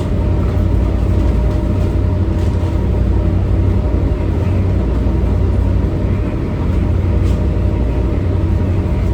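Boat diesel engines running steadily: a loud low drone with a steady hum over it.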